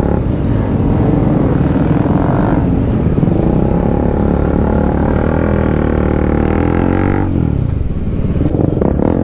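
Motorcycle engine running under way at riding speed, as heard from the saddle. Its pitch climbs under throttle and then falls away about seven seconds in as the rider eases off.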